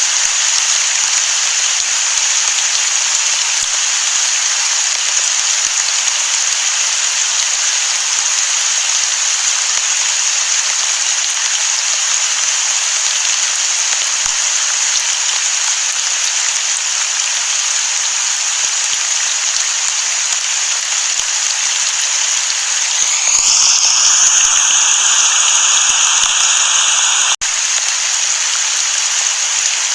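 Steady, dense rain hiss with no thunder. About 23 seconds in it turns slightly louder with a rising, sweeping whoosh, which breaks off abruptly about four seconds later, and the plain rain hiss carries on.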